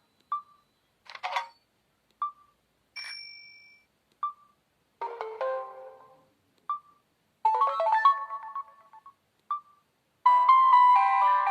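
Samsung GT-S5610 phone playing a series of short preloaded SMS alert tones one after another, each a different brief chime or jingle, with the same short beep before each one. The last tone, near the end, is the longest and loudest.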